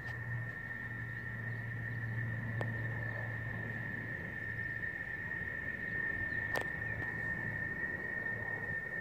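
Low drone of a distant formation of military aircraft passing overhead, fading away about halfway through, under a steady high-pitched whine.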